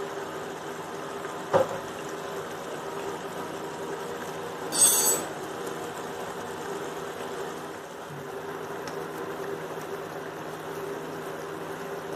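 Chicken pieces frying in oil in an aluminium pan, bubbling steadily under a constant low hum. A sharp click about a second and a half in, and a brief louder burst of noise about five seconds in.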